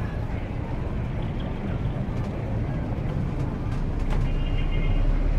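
Car driving along a street: a steady low engine and road rumble that gets a little louder about four seconds in. A brief high tone sounds near the end.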